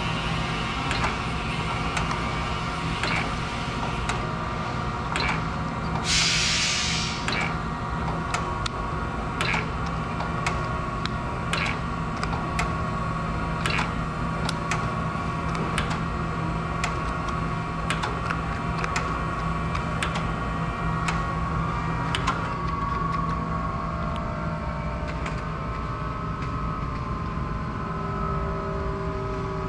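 Acer AGS-1224AHD hydraulic surface grinder running under power, with a steady machine hum that has a low drone and higher whining tones. Sharp clicks come every second or two, and a short hiss comes about six seconds in.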